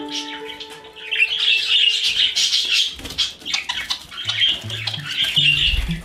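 Pet budgerigars chattering, a steady stream of quick high chirps and squawks, over background music with held notes and, later on, a low bass line.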